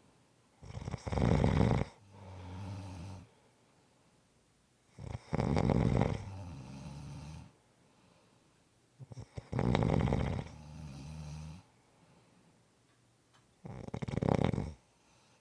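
A person snoring in slow, regular breaths: four loud, rattling snores about four seconds apart, the first three each followed by a softer, humming out-breath.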